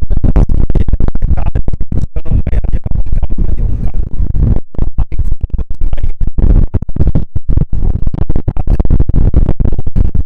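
Strong wind buffeting a Rode VideoMicro shotgun mic that has no windshield: loud, choppy low rumble in rapid gusts with brief dropouts, the typical sign of an unprotected microphone in wind.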